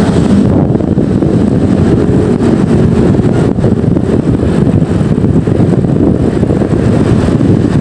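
Loud, steady low rumble of a vehicle on the move, with wind buffeting the microphone.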